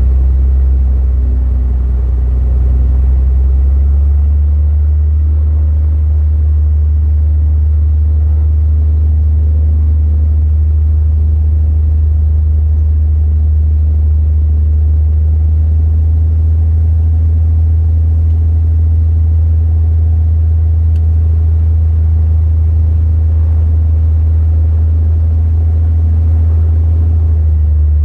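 Propeller aircraft engine running, heard from inside the cockpit as a loud, steady, deep drone; its tone shifts slightly about four seconds in.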